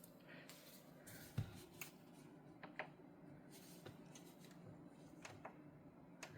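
Near silence: a low room hum with a few faint, scattered clicks and small handling sounds.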